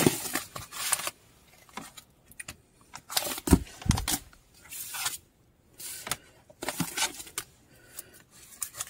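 Irregular handling noises: rustling, scraping and light knocks from paper items such as baseball cards and sticker books being moved about, a little louder around the middle.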